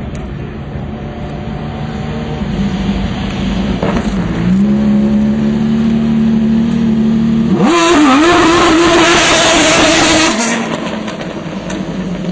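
Maserati MC12 race car's V12 engine passing close by under throttle. The engine note holds steady, then jumps sharply higher and louder about seven and a half seconds in as the car accelerates past. About ten seconds in, the throttle lifts and the sound falls away.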